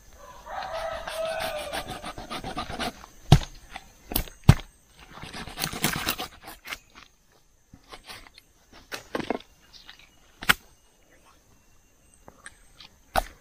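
Large kitchen knife cutting up a whole patin catfish on a wooden board: several sharp knocks as the blade chops through onto the board, with a stretch of scraping and sawing between them. In the first few seconds a drawn-out, animal-like cry is heard.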